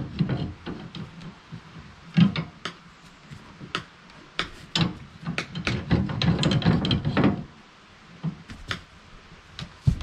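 Irregular metal clicks, clanks and knocks from a Woodland Mills sawmill's log clamp being worked by hand against a log, with a denser run of rattling about five to seven seconds in.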